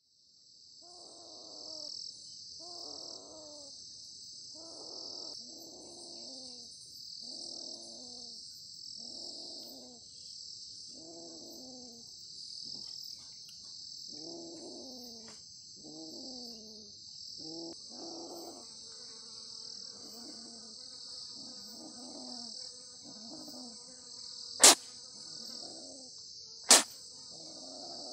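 Steady high-pitched drone of insects, with a low pitched call repeating about once a second over it. Two sharp, loud clicks come about two seconds apart in the last part.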